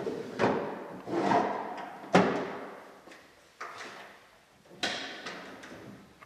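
Small wooden drawers of a mahogany Biedermeier secretary desk being pulled out one after another: several short wood-on-wood sliding scrapes, each ending in a knock, the sharpest about two seconds in.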